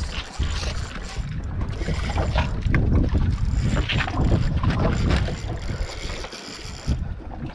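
Wind buffeting the microphone aboard a boat at sea: a heavy, uneven rumble with scattered small knocks, easing briefly near the end.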